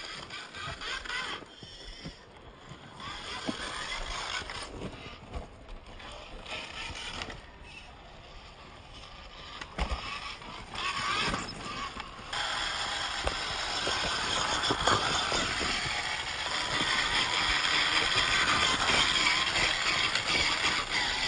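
Axial Capra 1.9 RC trail buggy crawling over rough ground: its geared drivetrain running, with scattered crackles of tyres and chassis on rocks and leaves. The sound jumps to a louder, steadier hiss about twelve seconds in.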